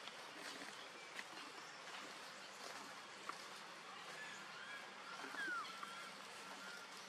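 Faint outdoor ambience with a few short, high chirping calls and whistles in the second half, one sliding downward about five seconds in.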